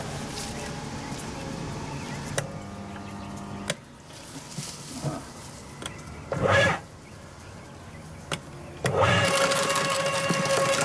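Okay 2000 W electric roller shredder switching on about nine seconds in and running with a steady hum. Before that, a few clicks and knocks and one short loud burst of noise.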